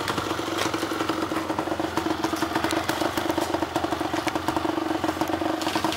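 Kawasaki KSR-II's two-stroke single-cylinder engine idling steadily through a Pro SKILL Parts aftermarket expansion chamber and silencer. It holds one even pitch, with a fast, regular patter of exhaust pulses.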